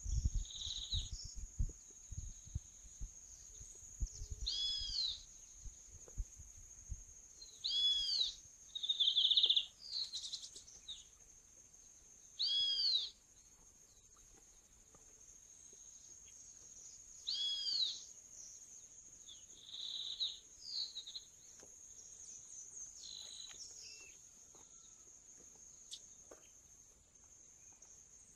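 Songbirds calling: one gives a loud arched call, repeated about every four to five seconds, and shorter chirps come in between, all over a steady high insect buzz. A low rumble is heard in the first few seconds.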